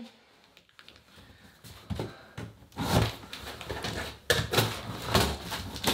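A tall cardboard box being cut open with scissors: irregular scraping, rustling and knocking of cardboard and packing tape, starting faintly after about a second and louder from about four seconds in.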